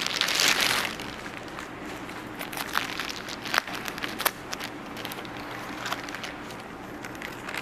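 Clear plastic wrapping crinkling as a small satellite speaker is unwrapped. It is loudest in the first second, then fades to light rustles with a few sharp clicks.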